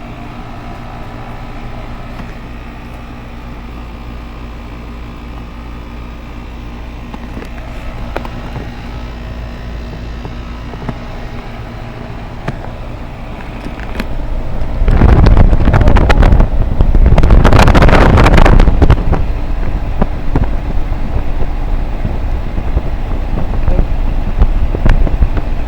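Goodman air conditioner running with a steady low hum. About fifteen seconds in, a much louder rushing, blowing noise comes in, loudest for about four seconds, then eases but stays strong.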